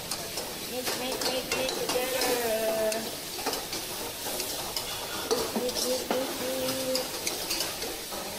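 Pad thai sizzling in a hot wok while a metal spatula stirs and scrapes it, with frequent small clacks of spatula on wok.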